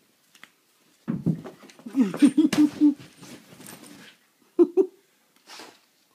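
Siberian husky vocalizing. It gives a low pitched sound about a second in, then a quick run of about five short low calls, and two more short calls near the end.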